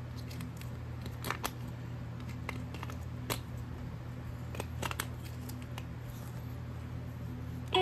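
Hands handling a plush animatronic dancing hamster toy: a scatter of light clicks and rustles over a steady low hum.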